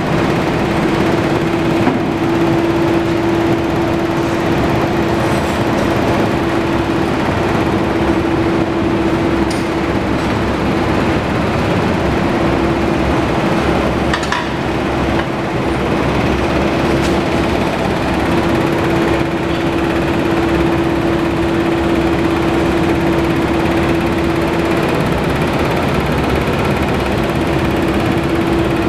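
Honda ST1300's liquid-cooled V4 engine running at a steady idle, with a constant hum-like tone through it.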